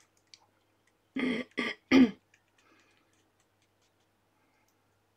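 A woman clearing her throat, three short coughs in quick succession about a second in.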